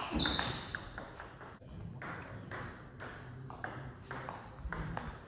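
Table tennis rally: the ball clicking sharply off the rackets and the table in an irregular series of hits and bounces, with a brief high squeak about a quarter second in.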